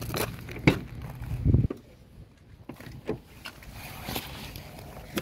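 A car engine idling, its low steady hum cutting off suddenly about a second and a half in, right after a loud knock; a few scattered clicks and knocks follow.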